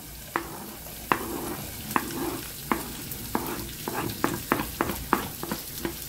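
Diced onion being scraped off a cutting board with a wooden spoon into a small pan of garlic frying in oil: a steady sizzle with a series of short knocks from the spoon on the board and pan, a few at first, then several a second from about halfway.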